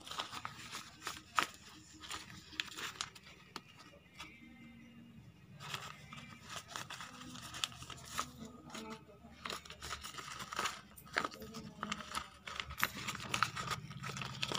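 A sheet of paper crinkling, rustling and tearing in irregular crackles as a kitten grabs, bites and kicks at it, with a quieter spell about four seconds in.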